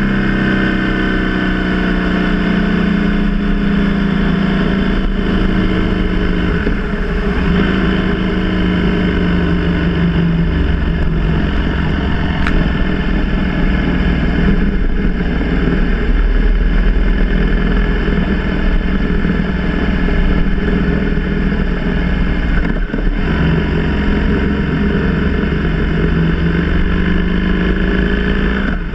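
BMW R 1200 GS boxer-twin engine running under way, heard from the bike at riding speed. The engine note drops over the first few seconds, then rises and falls with the throttle, over a steady wind rumble.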